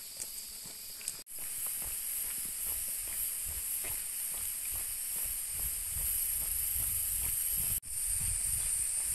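Steady high-pitched drone of rainforest insects, with irregular footsteps on the trail beneath it and a low rumble in the second half. It cuts out for an instant twice, about a second in and near the end.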